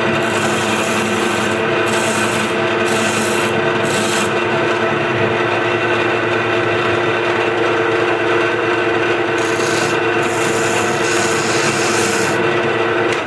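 Wood lathe running with a steady motor hum while a turning chisel cuts the spinning wooden blank, the tool scraping in short strokes during the first four seconds and again for a few seconds near the end. The lathe shuts off right at the end.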